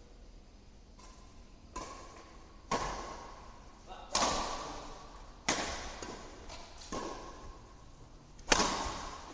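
Badminton rally: a shuttlecock is struck back and forth by rackets about seven times, roughly once a second, each sharp pinging crack echoing in a large hall. The loudest hit, near the end, is an overhead shot close by.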